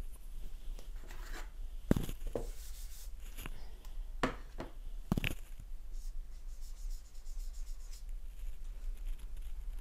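Dry-erase marker squeaking and scratching on a whiteboard in short quick strokes during the second half. Before that come several sharp knocks and taps, the loudest about two seconds in.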